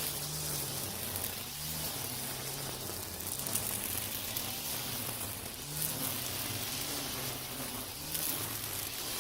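Cordless brush cutter spinning nylon trimmer line through overgrown weeds: a steady hissing swish of the line through the grass, with the motor's hum dipping and recovering about every couple of seconds as the line bites into the growth.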